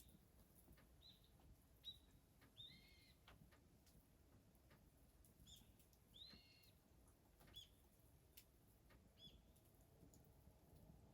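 Faint, short bird chirps, about a dozen scattered calls with a brief arched pitch, over faint scattered clicks.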